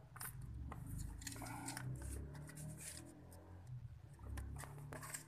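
Light, scattered clicks and rustles of fingers handling small plastic and metal phone parts, over a low hum.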